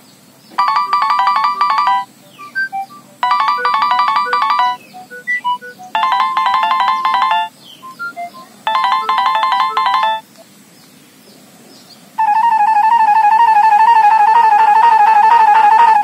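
Nokia 6610 phone speaker playing polyphonic ringtone previews: a short synthesized melody repeated four times with short gaps, then about twelve seconds in a different, steady warbling tone starts as the next ringtone in the list plays.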